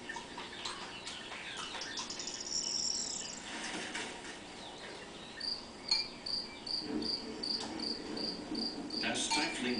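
Crickets chirping in an even rhythm, about three chirps a second from about five seconds in, heard from a nature documentary's soundtrack through a television speaker.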